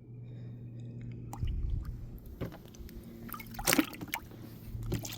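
Water splashing and dripping with a few sharp knocks, over a steady low electric hum.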